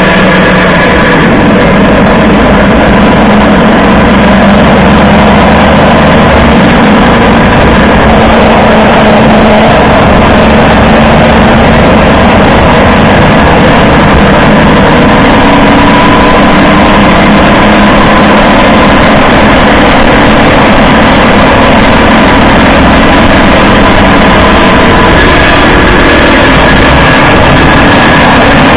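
Toyota HiAce 200-series van on the move: steady tyre road noise with a rattling (karakara) from the differential, the abnormal noise the owner is chasing after the hub bearings were already replaced.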